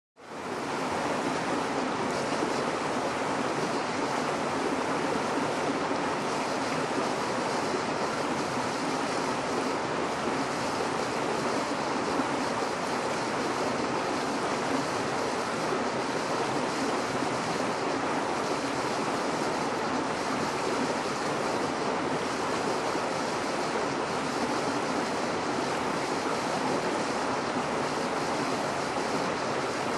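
Steady rush of flowing water in a shallow stream, fading in at the very start.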